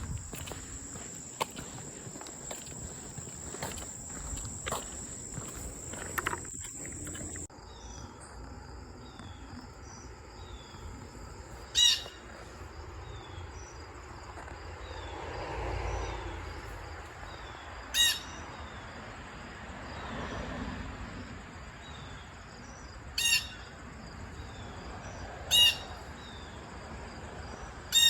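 Outdoor insect and bird sounds: a steady high buzz of insects that changes abruptly about seven seconds in to rapid, evenly repeated insect chirps, broken five times by a loud, sharp bird call. Twice a low rumble of a passing vehicle swells and fades.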